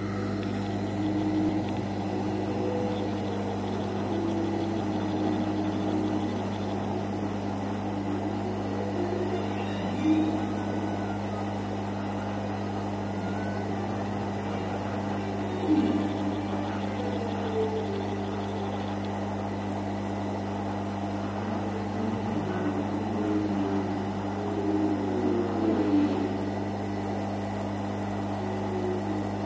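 Steady low electrical hum of the reflow soldering equipment heating a circuit board as its solder paste melts. Faint, short pitched tones come and go in the background.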